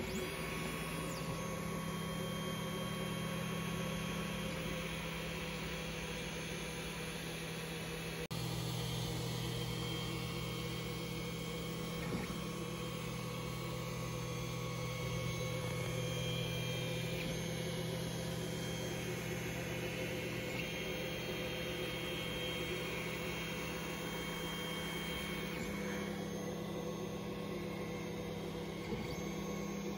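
TEVO Tornado 3D printer running a print: a steady fan hum, with the stepper motors whining in low tones that shift to new pitches every few seconds as the print head moves.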